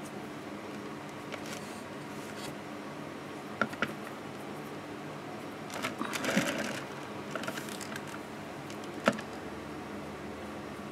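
Steady low background hum with small handling noises: a couple of light clicks, a brief scraping shuffle about six seconds in as the painting board is shifted on the woven mat, and one sharp tap near the end.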